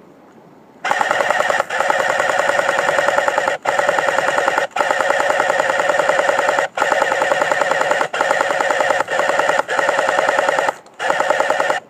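Airsoft electric gun (AEG) firing on full auto, close by: a rapid stream of shots over the whine of the gearbox. It starts about a second in and fires in long bursts with several brief breaks, stopping just before the end.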